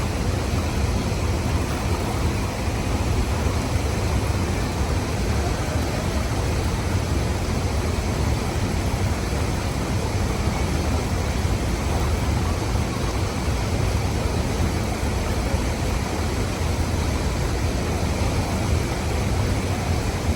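Steady rush of river water and a waterfall, an even noise that does not change.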